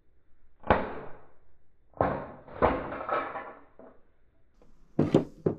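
A handful of sharp knocks and clatters of hard objects being handled and set down, each dying away briefly. The pairs come about a second in, around two to two and a half seconds, and near the end.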